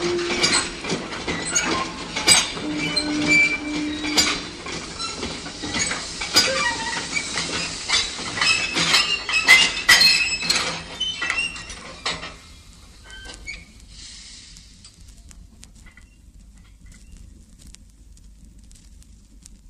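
Recorded railway sound effect of a train between stories: a dense run of clanks and rattles with a few short held tones, fading out about twelve seconds in. After that only faint vinyl record surface crackle remains.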